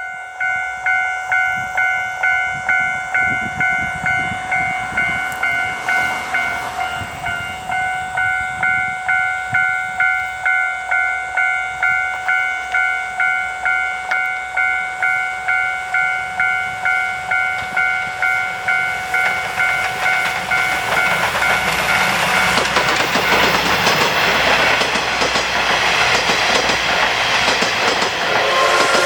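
A Japanese level-crossing warning bell dinging steadily, about two and a half rings a second. From about twenty seconds in, a steam-hauled train (the SL Ginga) passes over the crossing, and its loud rumble and wheel clatter cover the bell.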